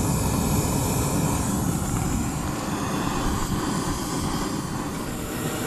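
Butane canister stove burner running on full, a steady rushing flame noise under a pot of water being heated.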